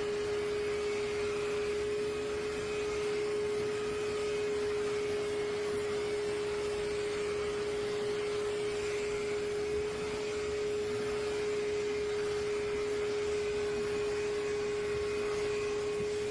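Dog clipper with built-in vacuum suction running steadily: one steady hum over an even airy hiss.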